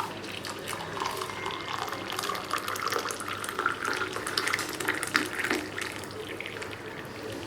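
Tap water running into a sink, splashing steadily.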